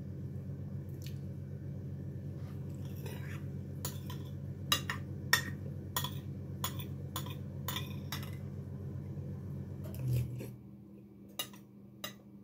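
Cutlery clinking against a plate while eating, a run of sharp clinks about two a second. Under it a steady low hum that cuts off about ten seconds in.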